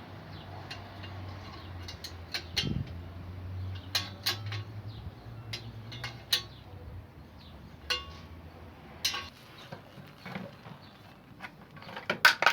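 Scattered metallic clinks and knocks as an air conditioner's outdoor unit is handled and set onto its metal wall bracket, with a quick run of louder knocks near the end. A low steady hum underneath stops about seven seconds in.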